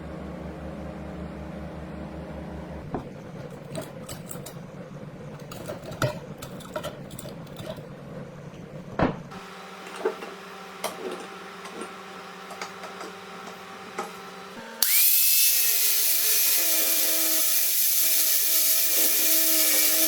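Workshop tool sounds: scattered clicks and knocks over a low hum, then about fifteen seconds in a power tool starts and runs with a loud, steady hiss.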